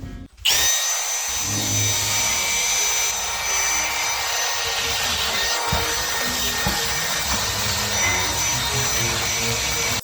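A motor running with a steady whir and hiss and high whining tones, spinning up suddenly about half a second in and cutting off abruptly near the end.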